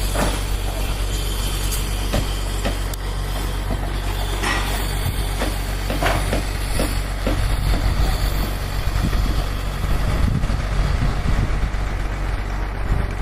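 An engine running steadily at a low hum, with scattered knocks and clatter over it.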